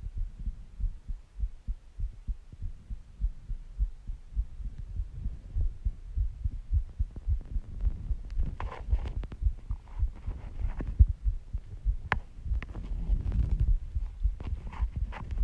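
Human heartbeat, a steady run of low thumps. Soft breaths come in over it several times in the second half.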